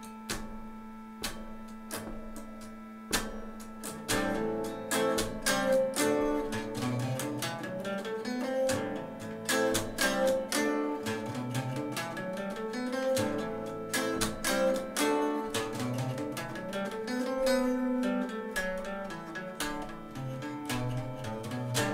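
Semi-hollow-body electric guitar playing fast single-note runs of the A Dorian scale with enclosure notes, over a steady drone note and a regular backing beat. The guitar runs come in about four seconds in.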